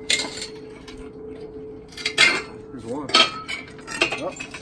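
Sharp metal clinks and clanks of hand tools striking and scraping an old engine's metal parts during teardown, four separate hits spaced a second or so apart.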